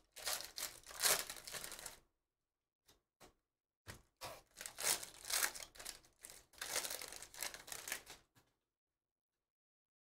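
Foil trading-card pack wrappers being torn open and crinkled by hand, in two stretches of tearing and rustling with a few short clicks between them.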